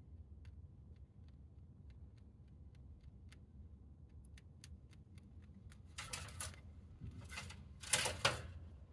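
Rabbit chewing hay: crisp little crunches about three a second. Near the end come three louder rustles of hay as the rabbit moves about.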